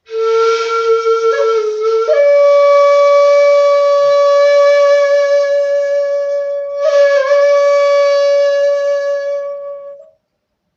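Jinashi shakuhachi, a 1.7-length end-blown bamboo flute, playing a short lower note that bends, then stepping up to a long held higher note with a breathy tone. Near seven seconds in the held note briefly breaks and dips in pitch, then carries on until it stops about ten seconds in.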